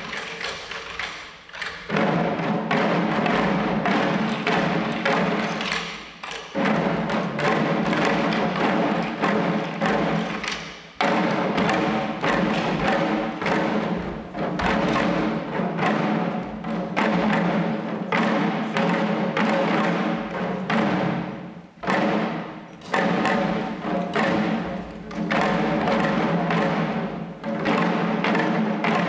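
Shishi odori deer dancers beating the small taiko drums at their chests in a quick, steady rhythm, over held tones, with the music dropping out briefly a few times.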